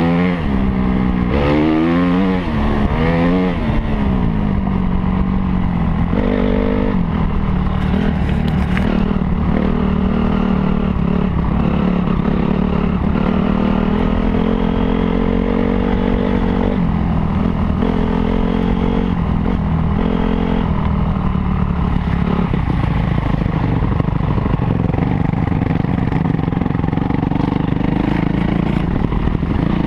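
Honda CRF250R's single-cylinder four-stroke engine running under load as the dirt bike is ridden: revving up and down quickly through the first few seconds, then pulling steadier, with its pitch stepping up or down a few times.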